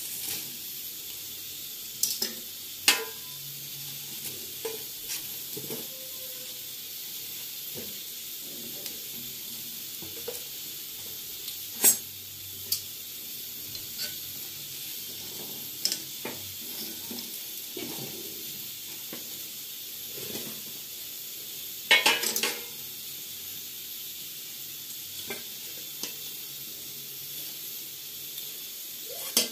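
Ashkaliya cakes sizzling in the hollows of an iron mould pan, with sharp clicks and scrapes of a metal knife against the pan as they are prised out. A spoon knocks and stirs in a batter bowl near the end.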